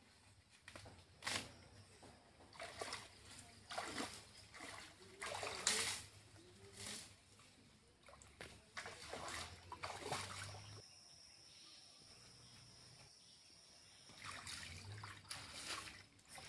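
Shallow muddy water splashing and sloshing as a person wades through it and pulls up plants, in irregular splashes with a quieter stretch about two-thirds of the way through.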